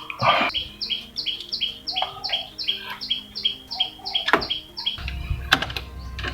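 A bird chirping in a fast, even run of short falling notes at two alternating pitches, about three a second, stopping about five seconds in. A couple of sharp metallic clinks, one about four seconds in, and a low steady rumble comes in near the end.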